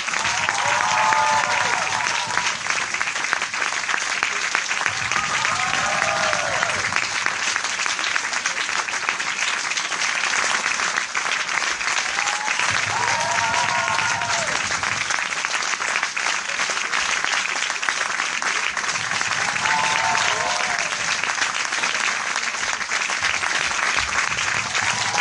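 Dense crowd applause, many hands clapping at a steady level, with a short cheering voice rising and falling above it about every six seconds.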